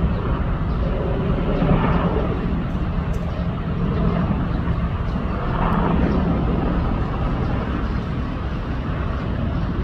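AH-64 Apache attack helicopter's rotors and twin turbine engines, a steady low drone.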